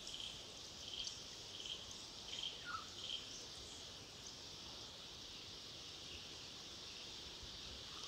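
Faint, steady high-pitched chorus of insects, with a run of short chirps about once a second during the first three seconds and one brief falling bird call a little under three seconds in.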